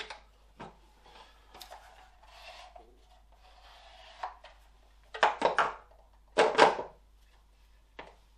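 Clicks, rubbing and clatter of plastic and metal parts on a Kirby G3 vacuum's nozzle being handled as its belt is wound on, with two louder clattering bursts about five and six and a half seconds in; the motor is not running.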